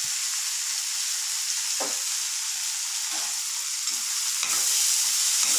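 Sprouted green gram sundal sizzling steadily in a hot metal kadai, a steady high-pitched hiss. A few light knocks of the steel spatula against the pan come through, with a slight rise in level near the end as stirring starts.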